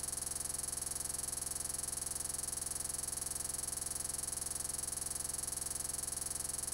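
Steady electronic hiss and buzz with a high whine, unchanging and evenly pulsing throughout, the sound of a glitched recording rather than of any activity.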